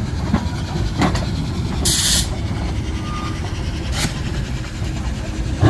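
Narrow-gauge train running with a steady low rumble, broken by two short hisses about two seconds apart.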